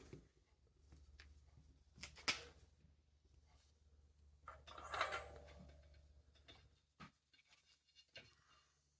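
Faint handling sounds of small parts on a workbench: a few scattered light clicks and knocks, with a soft scraping rustle about five seconds in.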